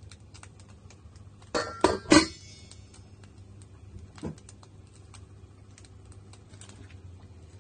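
A domed stainless steel lid lifted off a wok and set down, clanking three times with a short metallic ringing about a second and a half in, then a softer knock around four seconds. Small scattered clicks and a steady low hum run beneath.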